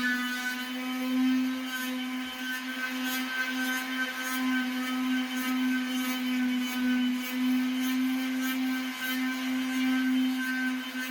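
Electric floor sanding machine running steadily with a constant motor whine and faint scratchy grit noise.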